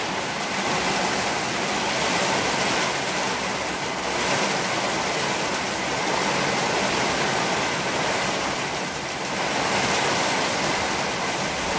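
Heavy rain falling steadily, an even hiss that swells and eases slightly.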